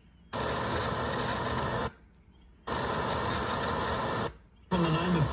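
Emergency Alert System SAME header heard over a radio receiver: bursts of buzzy digital data tones, each about a second and a half long, with a short gap between them. A third burst begins near the end.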